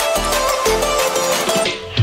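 Background electronic music with a steady beat and a melody; near the end the treble briefly fades out.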